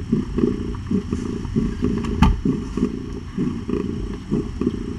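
Mother cat purring while nursing her newborn kittens: a low, rough, continuous purr that pulses with her breathing, with one sharp click about two seconds in.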